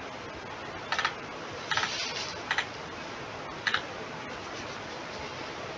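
A few scattered computer keyboard clicks, four short clusters in the first four seconds, over a steady hiss.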